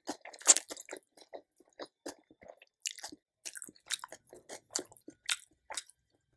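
A person chewing food close to the microphone, with irregular wet mouth clicks a few times a second and one louder bite about half a second in.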